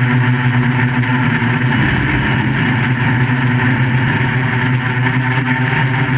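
QAV400 quadcopter's electric motors and propellers droning steadily in flight, a loud hum holding nearly the same pitch throughout.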